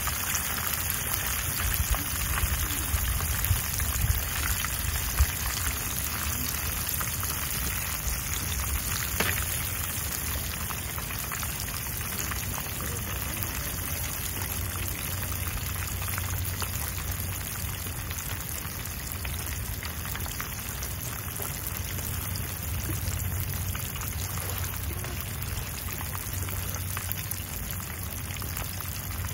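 Fish fillets frying in hot oil in a pan on a portable gas camp stove: a steady sizzle with a few louder pops and crackles in the first several seconds.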